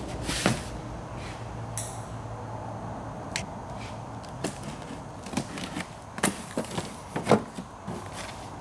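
A cardboard shipping box being handled on a workbench: scattered knocks, scuffs and clicks as it is moved and set down.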